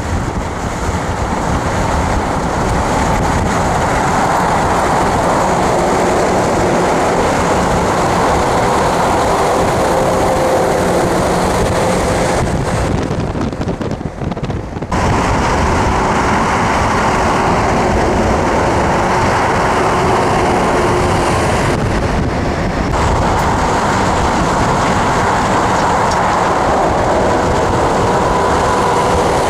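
Steady road and wind noise from a car driving at highway speed, with tyres rumbling and rushing. The noise dips briefly, losing its hiss, about halfway through.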